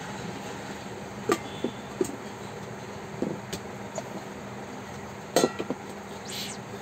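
Plastic lids being fitted onto stainless steel mixer-grinder jars and the jars set down on a table: a scatter of light clicks and clinks, the loudest cluster about five seconds in, then a brief swish near the end.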